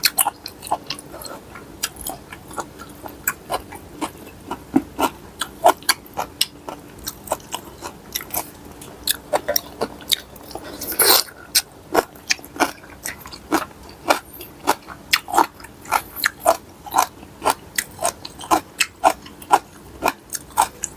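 A person eating papaya salad close to the microphone, with wet chewing and crunching and many sharp mouth smacks and clicks at an uneven pace. About eleven seconds in there is one longer noisy sound.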